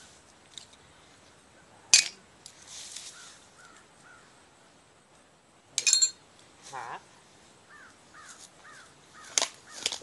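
Digging tool striking hard, frozen dump ground: a sharp hit about two seconds in, a louder hit with a ringing clink of metal or glass about six seconds in, and two more quick hits near the end. Faint short bird calls repeat between the hits.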